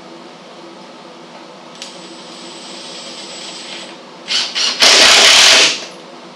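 Power drill driving a screw into a tailgate hinge: a softer slow run, two short trigger blips, then a loud run of about a second as the screw is driven home.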